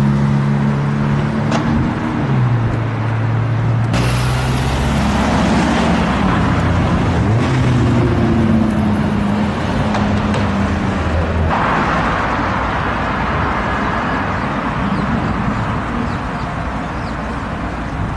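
Sports-car engines driving in city streets: first a Ferrari F8's twin-turbo V8 holding a steady note that drops in pitch about two seconds in as it pulls away. The sound changes abruptly twice, to another engine rising and falling in pitch through the gears, then to a car passing amid traffic noise.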